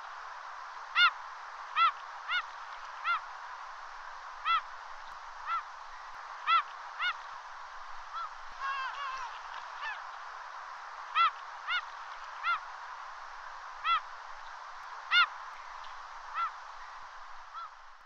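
Gulls giving short single calls at irregular intervals, with a brief flurry of overlapping calls about halfway through, over a steady background hiss.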